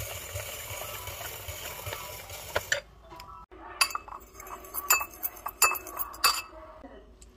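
A hand-crank spiralizer grinding steadily through a cucumber, then a fork whisking a vinegar-and-oil dressing in a ceramic bowl, clinking sharply against the bowl several times in the second half.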